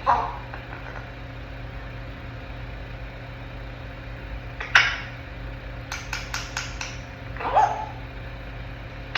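Young African grey parrot making short, falling calls at the start and again near the end, with a sharp click in the middle followed by a quick run of about six clicks. A steady low hum sits underneath.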